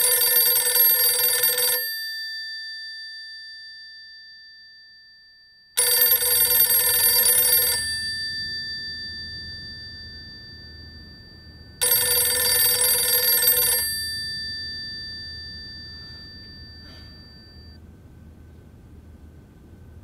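Corded desk telephone ringing three times, each ring about two seconds long and about six seconds apart, each leaving a long fading echo.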